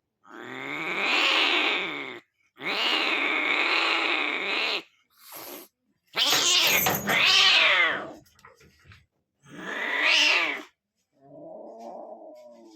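An animal calling: a run of long, drawn-out, wailing calls, each one to two seconds, with a short one in the middle and a lower, quieter call near the end, separated by abrupt silent gaps.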